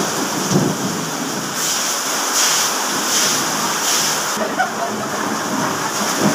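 Heavy rain pouring down steadily, a loud even hiss that swells for a few seconds in the middle.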